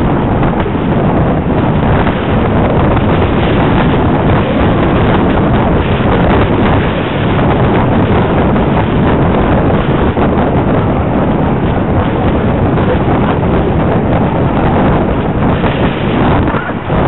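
Loud, steady wind buffeting the microphone of a helmet-mounted Veho mini camera on a moving bicycle, a dense rushing roar that dips briefly near the end.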